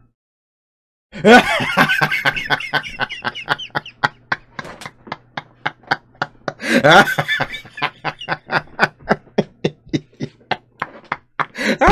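A man laughing hard in a long run of quick, breathy bursts, about five a second, starting after a second of silence and swelling louder about midway.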